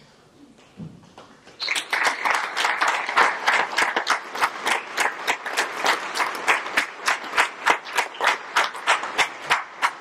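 Applause breaking out about a second and a half in. One pair of hands claps close and loud, about four claps a second, over the rest of the clapping.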